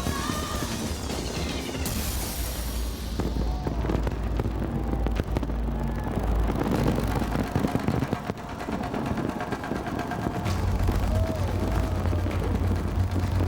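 Fireworks going off in many bangs over a deep rumble, mixed with the display's music soundtrack, which is clearest in the first couple of seconds.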